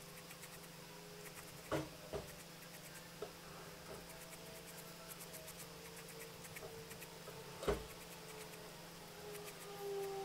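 Graphite pencil scratching across sketchbook paper in quick short strokes, with two sharper knocks, the louder one near the end. Faint sustained tones slide slowly downward and grow louder in the last second or so.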